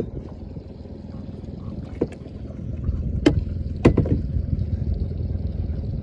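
Steady low rumble aboard a small fishing boat, with three short sharp knocks at about two, three and four seconds in.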